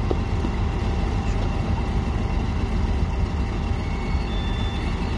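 Class 50 diesel-electric locomotive's English Electric 16-cylinder engine running as it moves slowly past, a steady deep rumble with a faint steady whine above it.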